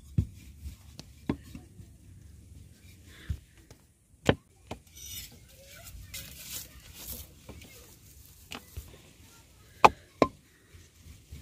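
Wooden rolling pin knocking and rolling on a tabletop as flatbread dough is rolled out: scattered sharp knocks, the loudest two close together near the end.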